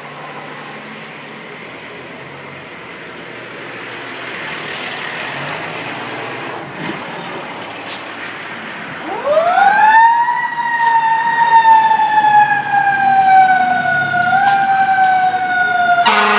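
A fire engine's engine runs and grows louder as it pulls away. About nine seconds in, its siren winds up in a steep rising wail and then slowly winds down, the rise-and-coast shape of a mechanical siren. A horn starts sounding right at the end.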